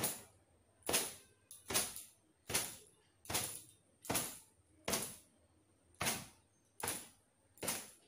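Towel swung and slapped against long wet hair to beat it dry, in regular sharp swishes about one every 0.8 seconds, around ten strokes.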